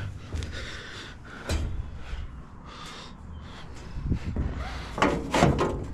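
Wind rumbling on the microphone, with a few light knocks and rustles from hands handling the belt guard and railing.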